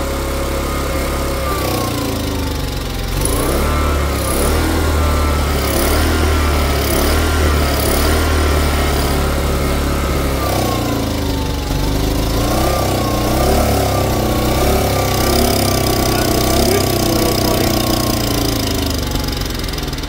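Small portable generator engine running on choke, its speed wandering down and back up several times instead of holding steady. It only almost runs right with the choke on, because a jet in the carburetor's fuel pickup tube in the float bowl is still clogged.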